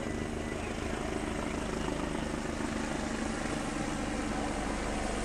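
Steady engine drone that holds one pitch.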